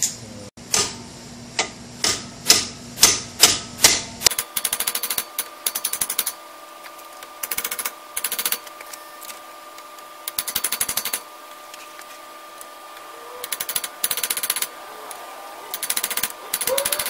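Axle bearing being driven into the end of a Dana 35 axle housing tube with a metal driver bar, metal striking metal. About eight separate strikes come in the first four seconds, then bursts of rapid tapping about a second long, with a ringing metallic note.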